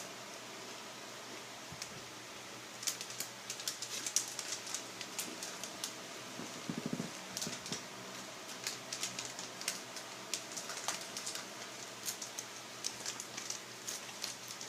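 Crunchy snacks being crushed up, making quick irregular clusters of sharp crackles that start about three seconds in.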